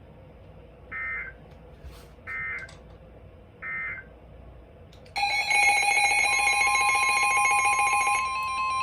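Three short bursts of EAS/SAME digital data tones, the end-of-message code of a NOAA Weather Radio warning broadcast. About five seconds in, a loud electronic alert with several tones starts, and a second later the steady single-pitch NOAA Weather Radio warning alarm tone joins it, announcing the next warning.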